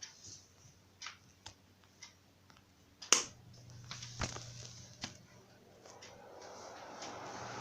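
A sharp switch click about three seconds in, after a few lighter clicks, and then a Venti Delta New Delta Light ceiling fan starts: a steady low motor hum, with the rush of air from the spinning blades rising steadily toward the end as the fan comes up to speed. It runs only on its top speed because its speed switch is faulty.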